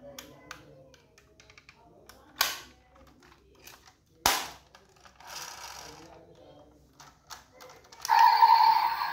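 Small clicks and snaps of a diecast Toyota Crown SUV model being handled, with a sharp snap about two and a half seconds in and a louder one about four seconds in as its opening door is shut. Music starts near the end.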